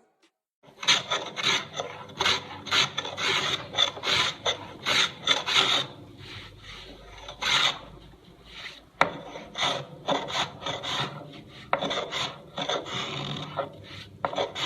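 A hand tool scraping across wood in a series of short, quick strokes, with a brief lull partway through before the strokes resume.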